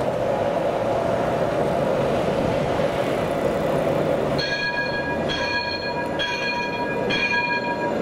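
Alstom Citadis 402 tram approaching on its tracks with a steady rumble. From about halfway, a warning bell rings four times in even strokes about a second apart as the tram nears the crossing.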